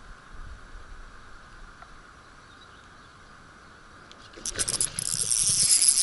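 Tsurinoya FS 2000 spinning reel ratcheting rapidly and loudly, starting about four and a half seconds in after a quiet stretch.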